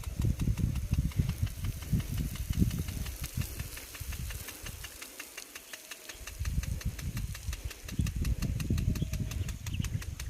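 Engine running steadily with a fast, even ticking, over an uneven low rumble that dies away for about a second midway. This is likely the engine that drives the water pump for the rain gun irrigation sprinkler.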